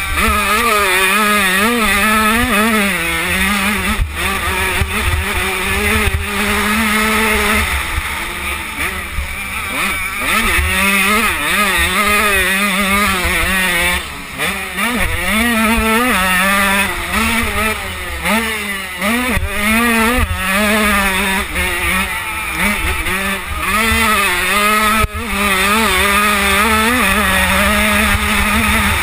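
KTM 85 two-stroke motocross engine revving hard on the track, its pitch constantly rising and falling as the throttle is worked and the gears change, with the revs dropping briefly a few times. Wind rumbles on the bike-mounted microphone underneath.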